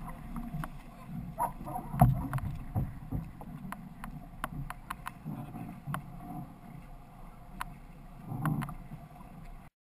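A six-person outrigger canoe on a wheeled cart being pushed over ground: a low, uneven rumble with scattered clunks and rattles, the loudest knock about two seconds in. The sound cuts off suddenly just before the end.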